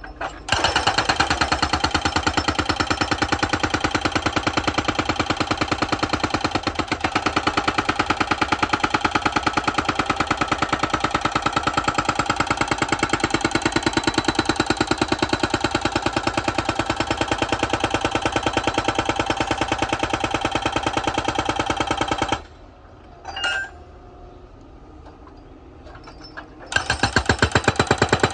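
Excavator-mounted hydraulic breaker pounding asphalt with rapid, evenly spaced blows over the excavator's engine. It stops about 22 seconds in, leaving the engine running, and starts hammering again near the end.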